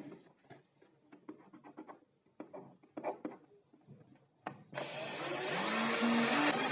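Light clicks and knocks of handling, then near the end a vacuum cleaner motor, reused to drive a homemade workshop tool, switches on and runs up to speed with a steady hiss and a hum that rises in pitch.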